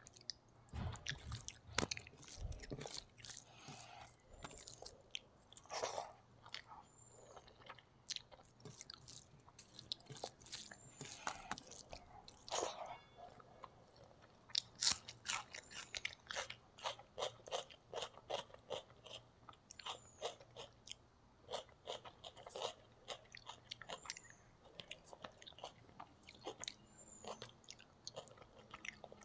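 Close-miked eating sounds of rice and fish curry eaten by hand: wet chewing, smacking and crackling mouth clicks, with crunchy bites of raw onion slices. There is a low thump about two seconds in.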